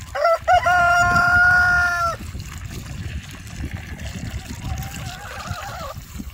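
A rooster crowing, one long held crow of about two seconds at the start, with a fainter chicken call about four seconds in. Water pours and trickles into a tub underneath.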